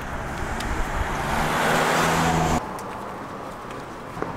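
A car passing on the street, its engine and tyre noise swelling to a peak, then cutting off suddenly about two and a half seconds in, leaving faint traffic noise.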